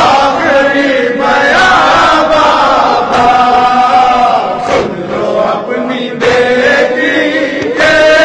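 Voices chanting a noha, an Urdu mourning lament, in long held notes, with phrases that break off every second or two.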